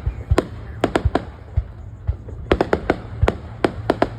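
New Year fireworks going off: a rapid, irregular string of sharp cracks and pops, a dozen or so in the span, over a steady low rumble.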